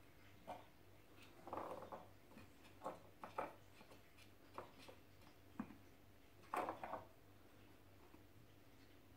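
Kittens playing at a cat tree and its ball-track toy: scattered soft knocks, taps and scuffs at irregular intervals, the loudest about six and a half seconds in, over a faint steady hum.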